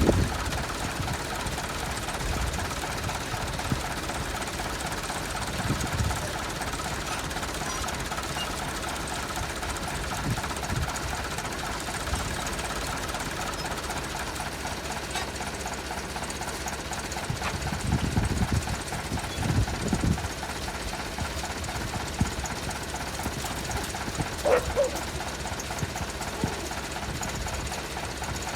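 Tractor engine running steadily with an even knocking rhythm. A few heavier low thumps come about two-thirds of the way through, and a short squeak near the end.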